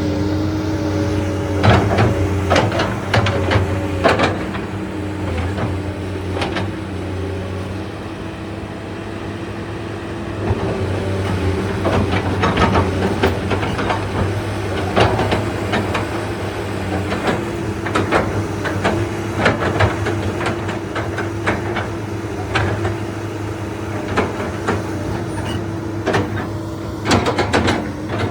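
Komatsu PC220LCi-12 excavator running steadily, with frequent irregular sharp metallic knocks and clanks over the engine hum.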